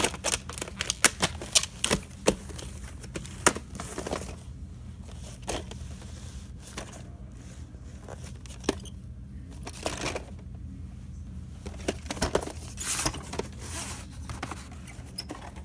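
A VHS cassette and its plastic clamshell case being handled: scattered plastic clicks, knocks and scraping, thickest at the start and again near the end, with rustling as the case and a cardboard sleeve are moved about.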